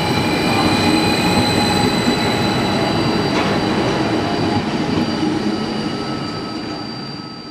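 CFL Stadler KISS double-deck electric multiple unit pulling out and passing close by: a rumble of wheels on rail with a steady high whine over it, fading away over the last few seconds as the train leaves.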